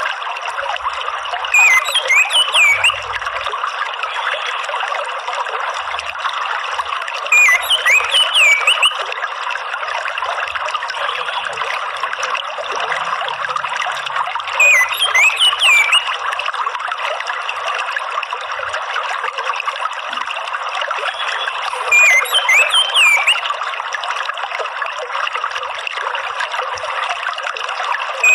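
Steady trickling water with a bird song phrase of quick rising and falling whistles over it. The phrase repeats four times, about every seven seconds: a looped orange-headed thrush (anis merah) therapy song.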